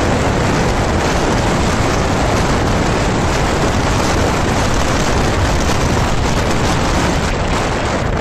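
Loud, steady rush of wind on the microphone of a moving motorcycle, with road and engine noise underneath.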